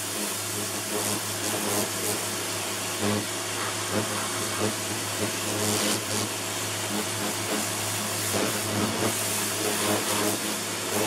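Kärcher pressure washer running steadily, its motor and pump giving a constant hum under the hiss of the water jet spraying onto a plastic sun lounger.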